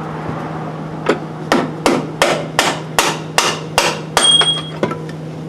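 Hammer striking metal on a vehicle's front suspension, about nine quick, evenly paced blows starting about a second in, the last ones leaving a brief metallic ring.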